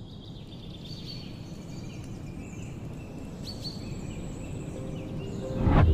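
Birds chirping and calling over a low, steady outdoor rumble, then a loud rising whoosh near the end.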